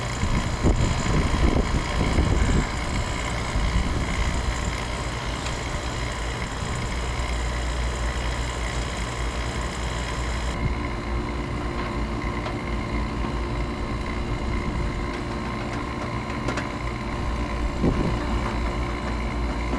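Refrigeration vacuum pump running steadily, a constant motor hum, while it pulls the new air-conditioning system's lines and coil down to a deep vacuum of a few hundred microns. Some irregular knocks and handling in the first few seconds, and about ten seconds in the sound turns duller, with a lower steady tone.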